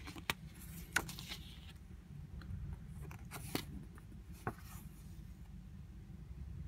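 Glossy pages of a CD booklet being handled and turned. A paper rustle in the first couple of seconds is followed by a few sharp crinkles and clicks.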